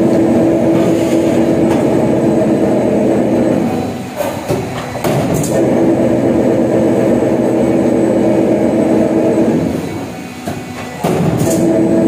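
Steel roll forming machine running as it forms a metal channel profile, a steady mechanical running with several held tones. Twice it drops back for about a second, about four seconds in and again near ten seconds, with sharp knocks in those gaps as the line halts for the automatic punch and cut-off, then it runs up again.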